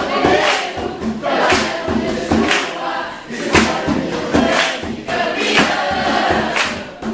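Music with voices singing together over a steady beat.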